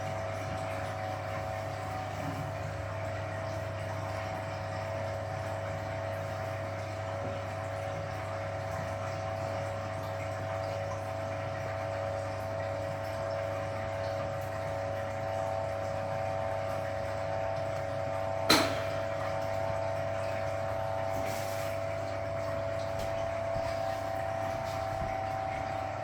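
Hoover Automatic 820 washing machine's drain pump running steadily as it pumps out the wash water, a constant hum with a single sharp click about eighteen seconds in.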